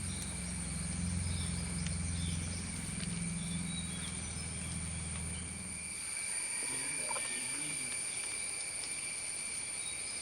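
Insects calling steadily at several high pitches, with a low hum underneath that stops about six seconds in.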